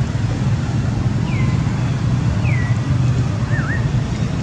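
Steady low outdoor rumble with a few short, high whistled chirps over it: two that fall in pitch, about a second apart, then a quick dip-and-rise one near the end.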